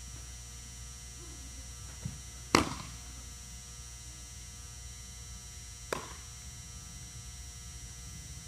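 A pitched baseball smacks into the catcher's mitt once, sharply, about two and a half seconds in, with a short echo from the large indoor hall; a softer smack follows about six seconds in as the ball is caught again on the return throw. A steady electrical hum runs underneath.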